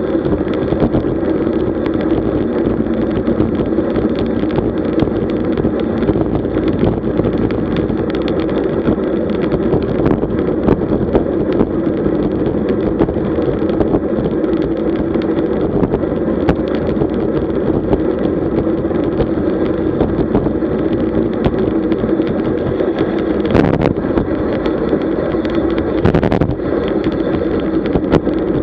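Steady rush of wind and rolling noise while riding a road bike at speed, with a couple of brief knocks near the end.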